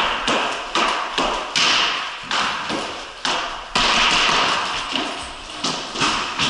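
Hockey sticks clacking and slapping on a concrete floor and against wooden boards, irregular sharp knocks about twice a second that echo off the walls, with a longer scrape about four seconds in.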